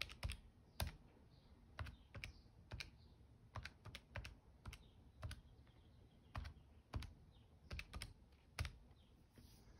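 Buttons being pressed on a Casio fx-115ES PLUS scientific calculator: a string of about twenty soft, irregularly spaced clicks as a long expression is keyed in.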